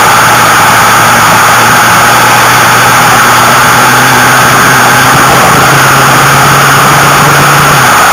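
Loud, steady wind rush on the microphone of a moving vehicle, with a low, steady engine hum underneath that stops shortly before the end.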